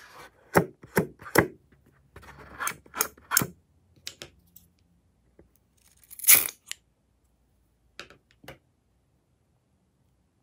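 Rubber water balloon handled in the hands, making a run of short rubbing and crackling sounds, then one sharp scissor snip through the balloon's end a little after the middle, followed by two faint ticks.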